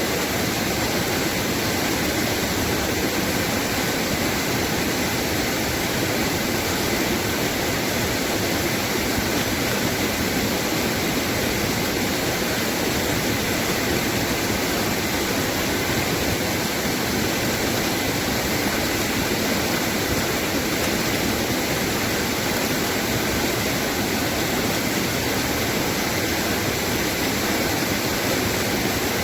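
Running water rushing steadily and evenly, a dense unbroken sound with no change in level.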